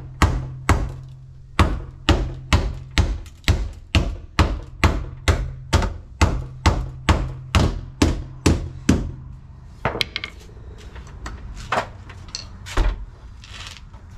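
A 5-pound hammer pounding the crash-bent sheet metal at a BMW 335i's door opening, a little over two blows a second, to make room for a replacement door. The blows stop about nine seconds in, and a few lighter knocks follow.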